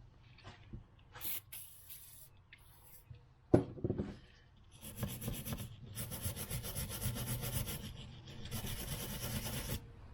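Fast back-and-forth scraping on the rusted steel of a pair of hand pruners, in two runs with a short break between. A few light clicks come first and a sharp knock about three and a half seconds in, before the scraping starts.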